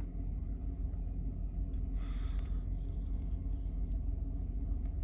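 A vintage Schrade Old Timer 125OT liner-lock folding knife being handled and its blade opened: a brief scrape about two seconds in and a few faint clicks, over a steady low background rumble.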